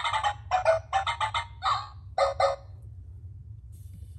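Hasbro 2005 I-Dog robot toy dog playing a quick run of about eight short electronic sound effects through its speaker, stopping about two and a half seconds in.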